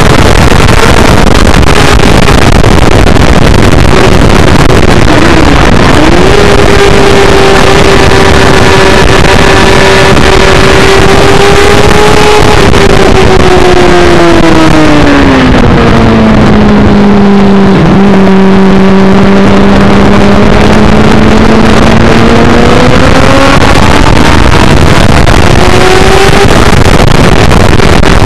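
Suzuki GSX-R600 K7's inline-four engine at high revs, heard on board under heavy wind rush. The engine note dips briefly about five seconds in, falls away from about twelve seconds in as the bike slows, holds low for several seconds, then climbs again from about twenty-two seconds as it accelerates.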